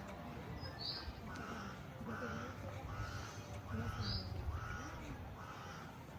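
A bird calling repeatedly, a run of short calls about one or two a second, over a faint murmur of distant voices and low background rumble.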